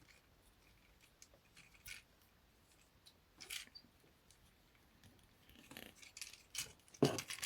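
Plastic Transformers action figure being worked by hand: scattered small clicks and taps of its joints and panels being moved and pushed into place, a few louder ones near the end.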